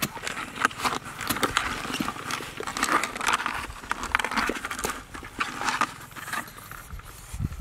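Softshell turtles scrabbling inside a plastic bucket: irregular scratching and light knocking as they shift against the plastic and against each other.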